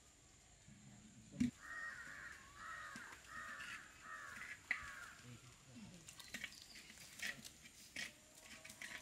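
A crow cawing, a run of about five harsh caws in a row from about one and a half seconds in. A sharp knock comes just before the first caw, another comes near the last, and scattered clicks follow in the second half.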